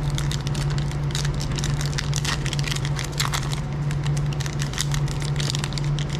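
Foil trading-card pack wrapper crinkling and crackling as it is torn and peeled open by hand, over a steady low hum.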